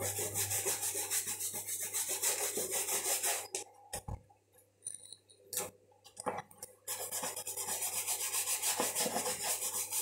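Stiff shoe brush scrubbing polish into a brown leather moccasin in quick back-and-forth strokes, about four a second. The brushing stops for a few seconds in the middle, with a couple of light knocks, then starts again.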